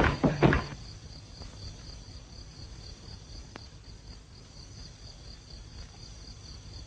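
Crickets chirping steadily in the background of an old film soundtrack: an even, high pulsing chirp over a faint hiss, with a single faint click about halfway through.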